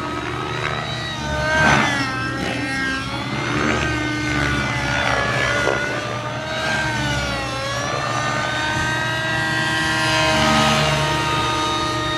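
Synergy N5C nitro RC helicopter flying 3D aerobatics: its glow engine and rotor whine, rising and falling in pitch over and over with the manoeuvres. It is loudest about two seconds in and again near the end.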